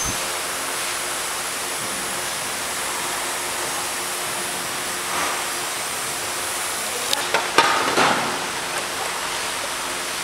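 Steady workshop background hiss, with a few sharp clicks and knocks about seven to eight seconds in.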